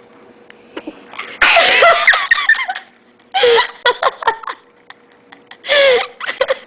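A child's forced sneeze with bursts of laughing and giggling, in three loud outbursts starting suddenly about a second and a half in.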